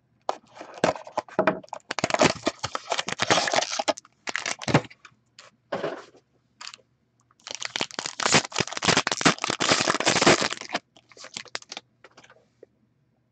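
A cardboard trading-card box being cut and torn open, then its wrapped card pack crinkling and ripping open, in several bursts of crackling and crunching; the longest lasts about three seconds, past the middle.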